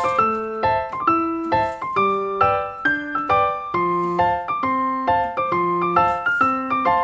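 Instrumental music on a keyboard instrument, piano-like: a steady melody over bass notes, with a new note or chord struck about every half second in a repeating phrase.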